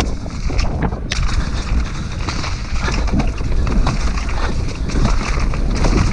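Mountain bike descending a muddy trail, heard through a helmet-mounted camera's microphone: a steady low wind rumble on the microphone, with a constant stream of clicks and knocks from the tyres and bike over rough ground.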